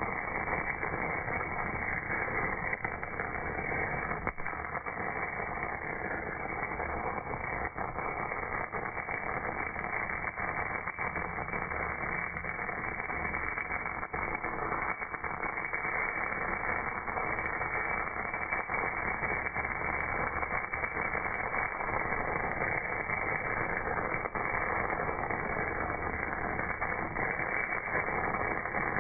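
MAG welding arc burning on a casting, its crackling sizzle slowed down by slow-motion playback into a dense, steady, low rushing noise with faint scattered clicks.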